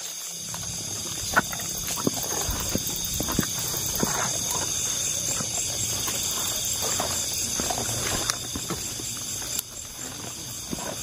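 Steady chorus of night insects, crickets trilling high and constant, with scattered short rustles and taps of movement through vegetation.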